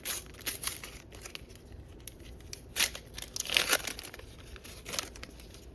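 Panini sticker packet being torn open and its wrapper crinkled, in a series of short crackly rips, the loudest about three and a half seconds in.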